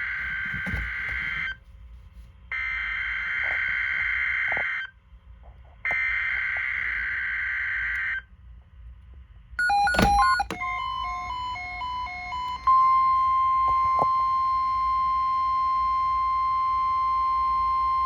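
NOAA Weather Radio alarm test. It opens with three harsh, screechy bursts of SAME digital header data about a second apart, then a quick run of alternating beeps, then the steady single-pitch weather radio warning alarm tone, which starts about 12 seconds in and holds.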